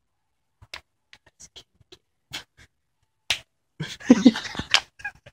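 A scattered run of sharp clicks and snaps, then from about four seconds in a louder burst of laughter mixed with crackling.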